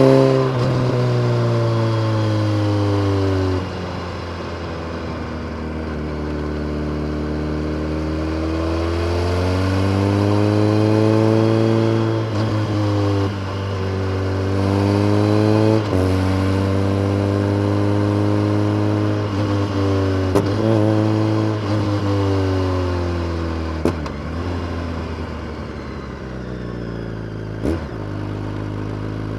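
BMW K1300R inline-four engine through a full Akrapovic race exhaust with a dB killer, ridden hard. The revs climb under acceleration, then drop back repeatedly through gear changes and off-throttle moments. A few sharp cracks come in the second half.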